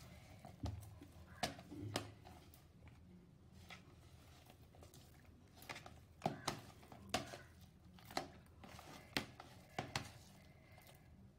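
Hands squeezing and kneading a sticky dough of mashed banana and cassava flour in a plastic tub: short wet squelches and smacks, roughly one a second, over a low steady hum.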